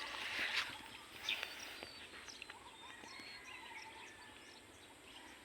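Faint outdoor ambience with scattered short bird chirps over a steady low hiss, and a couple of soft clicks in the first second and a half.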